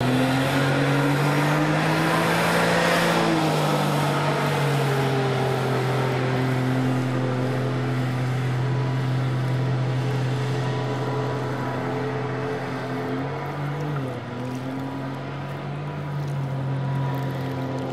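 Jet boat's engine running at speed, a steady pitched drone over a rush of water. The engine pitch climbs over the first few seconds and holds. It dips briefly near the end, then picks up again.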